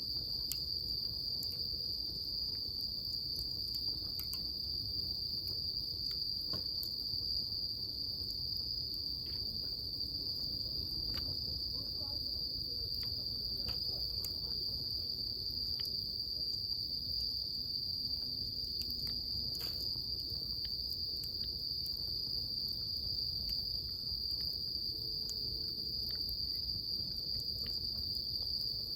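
A steady, unbroken high insect trill, with scattered sharp crackles from a burning wood fire.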